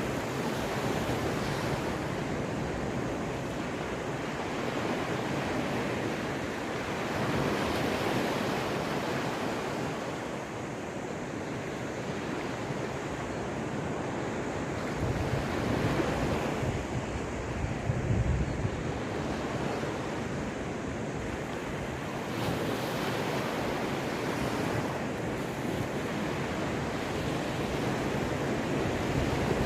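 Sea waves breaking and washing on the Caspian shore, a steady surf with swells as larger waves come in, about 7, 16 and 18 seconds in. Wind buffets the microphone at times.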